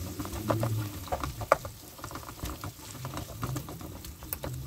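Wooden spoon stirring and scraping in a nonstick frying pan while tomato and pepper paste fry in olive oil with onions and carrots. Scattered sharp crackles and clicks run through it, the loudest about a second and a half in.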